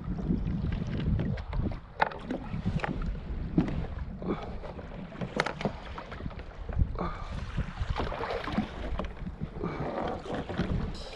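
Water sloshing against a fishing kayak's hull, with wind buffeting the microphone as a steady low rumble. Scattered sharp knocks and clicks come through it, and a rushing, splashy wash rises about seven seconds in and again near the end.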